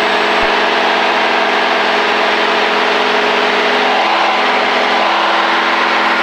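Single-engine Cessna's engine and propeller running steadily in flight, an even drone heard inside the cabin.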